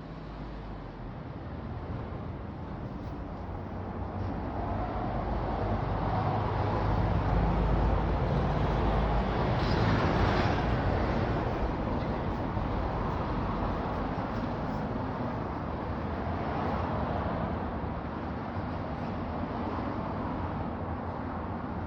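Mitsubishi Electric KG-70GTF2 industrial pressure ventilation fan running: a steady rush of moving air over a low motor hum. It grows louder over the first seven seconds or so, then holds steady.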